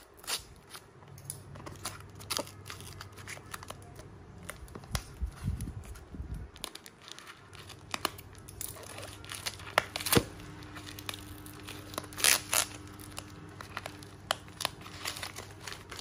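Paper and plastic parcel packaging being cut open, torn and crumpled by hand: a run of irregular crackles and rips, with a few sharper tears in the second half.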